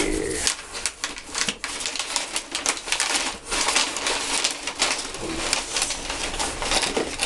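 Brown kraft packing paper rustling and crinkling as it is handled and bunched up in a cardboard shipping box, a dense run of crackles.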